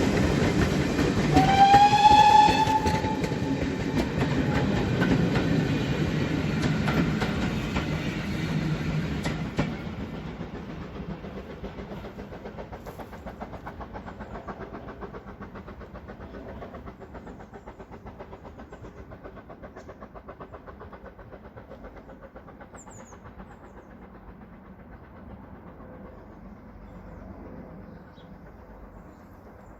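A train passes close by with a short whistle blast about two seconds in, the whistle rising slightly in pitch. Then it runs away into the distance, fading steadily, with a faint even rhythm of wheels running over the rail joints.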